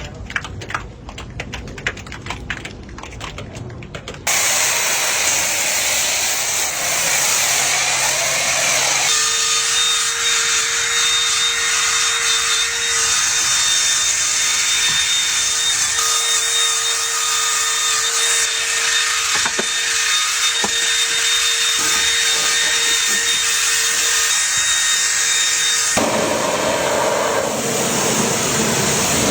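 Power tools at work in several cut-together clips: a crackling, clicking scrape first, then steady grinding noise, then a tool running with a steady high whine over its noise for most of the rest.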